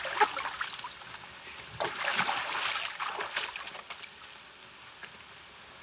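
Water sloshing and splashing around people moving in it, loudest around two seconds in, then dying away to a faint steady hiss.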